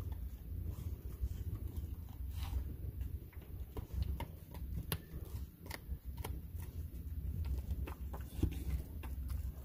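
A dog gnawing a dried pig's ear chew: irregular sharp crunches and clicks of teeth on the hard chew, over a low steady hum.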